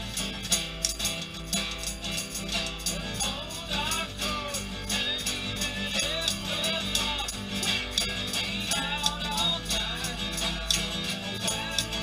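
Acoustic guitar strummed under a man's singing voice, with a steady rhythm of typewriter key clacks used as percussion. The singing comes in about three seconds in.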